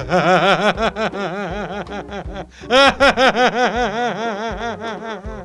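A man laughing hard, in two long bouts of rapid, repeated 'ha-ha' bursts, the second bout starting about halfway through.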